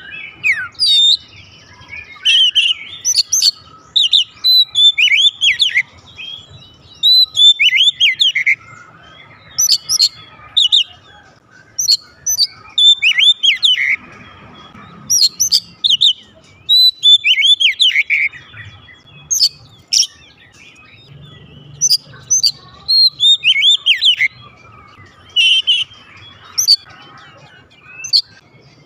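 Oriental magpie-robin singing loudly in full song: phrase after phrase of sweeping, whistled notes, each burst a second or two long with short pauses between.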